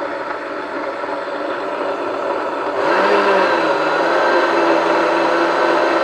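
Countertop blender with a glass jug running, puréeing a thick mix of sprouted wheat, ryazhenka, cranberries and honey. About three seconds in it grows louder and a steady motor hum comes through.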